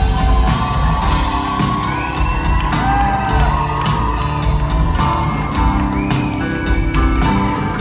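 Live rock band playing an instrumental passage between vocal lines: a steady drum-kit beat under electric and acoustic guitars and keyboard, heard through the hall's PA.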